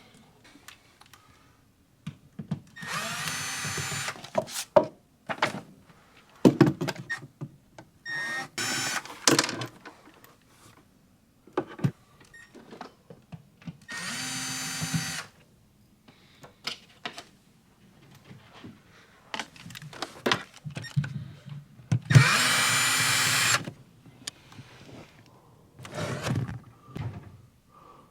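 Cordless drill/driver running in four short bursts of about a second each, spinning out or driving screws, with clicks and knocks of handling between the bursts.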